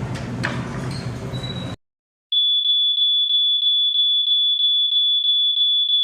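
A fictional Emergency Alert System alarm tone: one high, pure electronic tone that pulses about four times a second and cuts off abruptly. Before it, a loud rumbling noise stops suddenly, followed by a brief silence.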